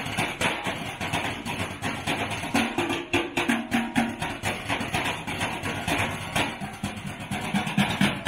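Street percussion on galvanized metal trash cans and buckets, beaten with drumsticks in a fast, dense rhythm. There is a run of short low-pitched hits about three seconds in.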